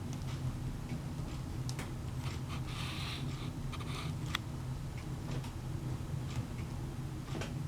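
Fire in a fireplace crackling: scattered pops and snaps over a steady low rumble, with a brief hiss about three seconds in.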